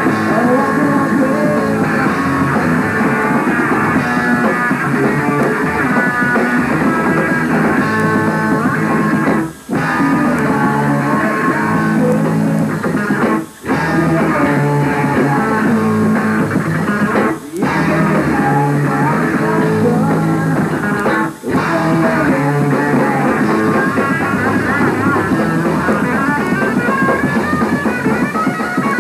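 Punk rock band playing live on electric guitars and drum kit. The music dips briefly four times, about four seconds apart, in the middle stretch.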